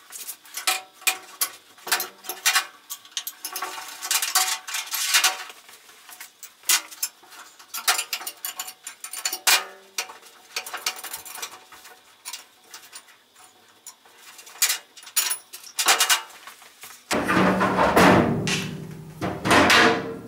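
Metal clinks and clicks of a hand tool and steel parts on a small metal lathe being worked on with an Allen key. Near the end a louder stretch of metal scraping and rattling as steel bracket bars are pulled free.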